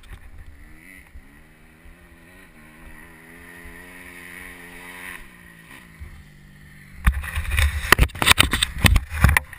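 Motocross bike's engine idling with a steady low note. About seven seconds in comes a couple of seconds of loud, irregular thumps and knocks.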